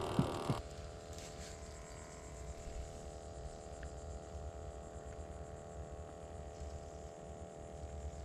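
Steady low hum and rumble with a faint steady whine over it; the background changes abruptly about half a second in.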